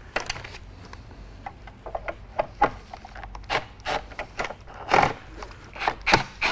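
Irregular clicks, taps and scraping of hard plastic and metal as screws are worked out of a trolling motor's plastic side cover with a cordless drill-driver, with a few louder knocks in the second half.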